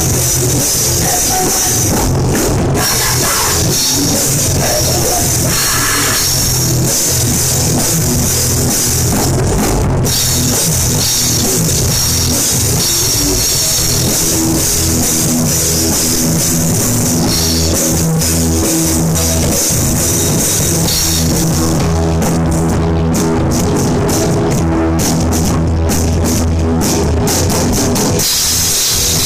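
Hardcore punk band playing loudly: distorted electric guitars and bass over a drum kit with crashing cymbals. A little over twenty seconds in, the steady cymbal wash breaks into choppy, stop-start hits for several seconds before the full band comes back in.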